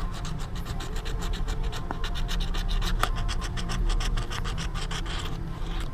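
Scratch-off lottery ticket being scratched off in rapid, repeated scraping strokes, several a second, stopping about five and a half seconds in.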